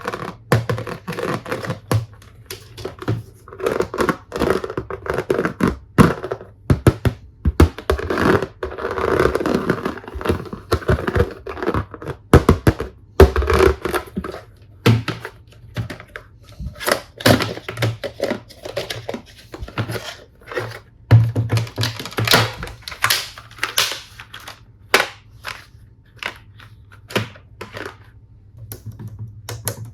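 Hard plastic toy tools and their packaging being handled: irregular clicks, taps and knocks, with a few longer stretches of rustling.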